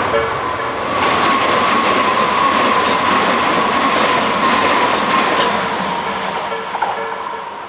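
Tobu Nikko Line electric train passing close by a level crossing: loud rumble and clatter of wheels on rail, with a high steady whine that slowly drops in pitch. The crossing's clanging alarm bell is drowned out and comes back faintly near the end as the train noise fades.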